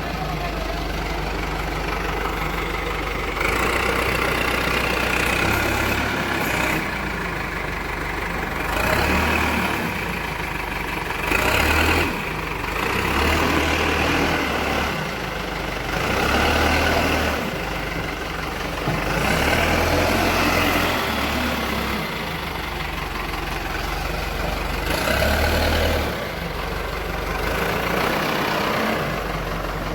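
Diesel engine of an Escorts DigMax-II backhoe loader running steadily, growing louder for a second or two every few seconds.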